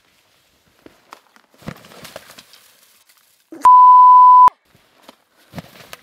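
A loud, steady 1 kHz bleep tone lasting just under a second, switched on and off abruptly about three and a half seconds in. Faint scrapes and knocks come before and after it.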